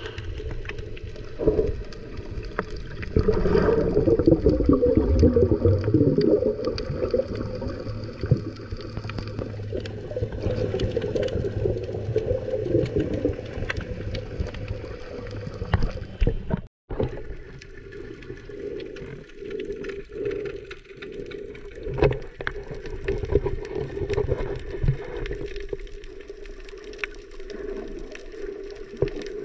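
Underwater sound heard through a submerged camera in the sea: muffled water sloshing and gurgling, with a low hum that wavers in pitch, loudest in the first third. The sound cuts out for an instant about 17 seconds in.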